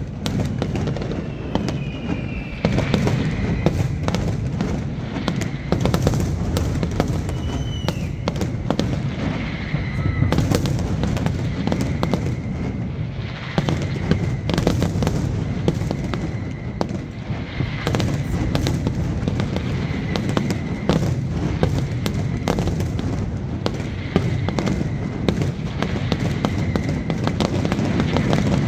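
Aerial fireworks display: a dense, continuous run of shell bursts and crackling, with deep booms rumbling underneath.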